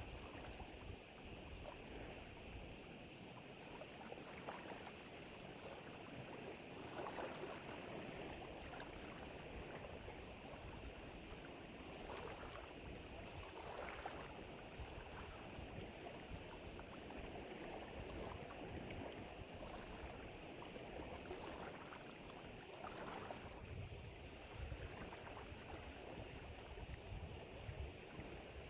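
Small wind-driven waves lapping and splashing at the lake's edge in irregular surges, with gusts of wind rumbling on the microphone.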